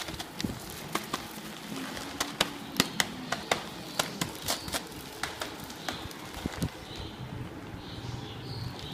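Irregular sharp clicks and taps, several a second, thinning out after about six seconds: items being handled and knocked together.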